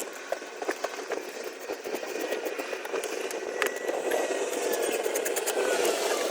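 Steady vehicle noise slowly growing louder, with scattered light clicks of hand tools on the intake manifold bolts.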